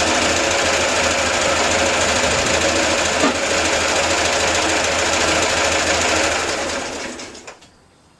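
Citroen Ami 6's warmed-up 602 cc air-cooled flat-twin engine idling with a fast, steady clatter, then switched off about seven seconds in and running down to a stop.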